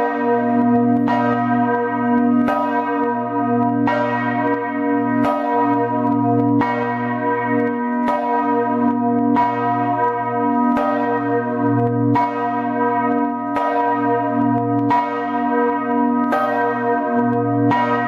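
Church bell of St Mark's Campanile ringing in a steady, even rhythm, about one stroke every second and a half. Each ring hangs on and overlaps the next.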